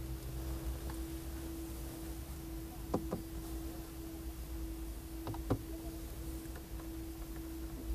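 Two pairs of light taps, a hand tapping on a car's dashboard top, about three and five and a half seconds in, over a steady hum with a constant tone.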